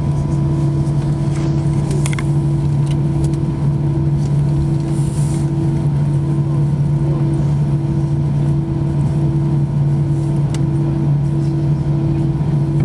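Cabin noise inside an Airbus A319-114 taxiing: its CFM56 turbofan engines at idle and the cabin air give a steady drone with a low hum and fainter higher steady tones, with a few faint clicks.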